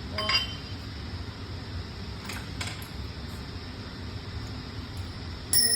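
Metal drill press parts clinking as they are handled: a short ringing clink just after the start, a few faint taps in the middle, and a louder ringing clank near the end, over a steady low hum.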